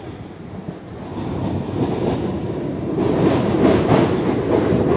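Suburban electric local train running on the track, heard from aboard. The wheels rumble and clatter, growing louder after about a second, with sharp clacks in the last two seconds.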